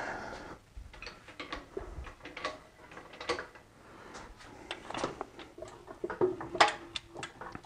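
Scattered light metallic clicks and clinks of hand tools and a fastener as the last loose bolt is worked free on a BMW M54 engine being pulled from the car.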